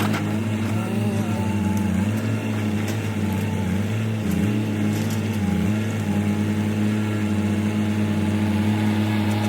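Diesel engine of heavy earthmoving equipment running steadily, its pitch sagging briefly twice, about four and about five and a half seconds in, as it takes load.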